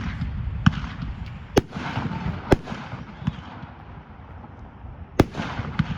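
Aerial Gold consumer firework going off: a string of sharp bangs, roughly a second apart and irregular, the loudest about one and a half, two and a half and five seconds in. A crackling hiss runs between the bangs.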